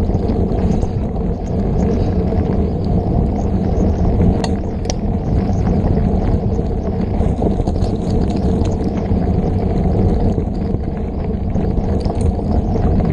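Mountain bike ridden fast down a dirt singletrack, picked up by a camera on the bike or rider: a loud, steady low rumble of tyres on the trail and rushing air, with a couple of sharp clicks or rattles about four and five seconds in.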